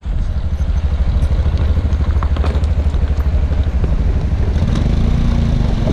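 Motorcycle engine running at low revs over rough ground, a steady fast low pulsing that rises slightly in pitch in the second half.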